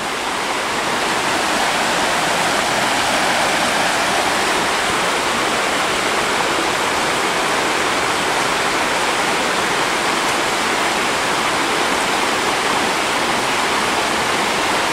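Shallow river rapids rushing steadily over rocks: a loud, even wash of water that grows a little louder over the first couple of seconds.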